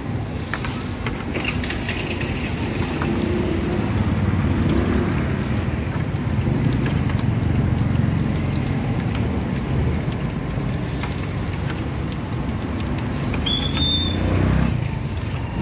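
Busy market street ambience: a steady hum of motor traffic with scattered clatter, and a vehicle passing close near the end, just after a few short high chirps.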